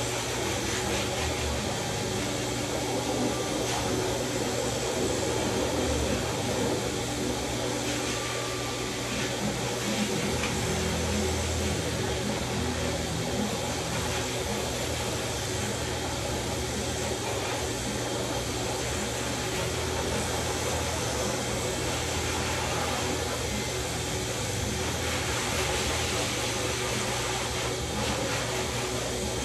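Corded electric dog grooming clippers with a #4 blade running steadily as they clip through a Labradoodle's curly coat, a constant motor hum.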